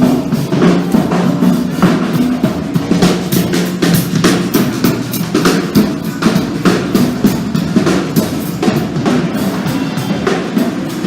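A live rock band playing, with a drum kit (bass drum and snare) driving a steady beat over a bass line.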